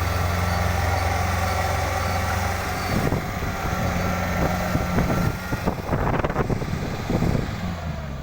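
Kubota DC-70 combine harvester's diesel engine running with a steady hum; after about three seconds the hum breaks up into irregular knocking and rattling.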